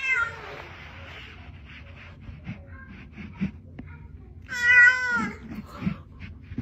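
Domestic tabby cat meowing twice close to the microphone: a short call falling in pitch at the start, then a louder, longer meow about four and a half seconds in. A few faint clicks fall between the calls.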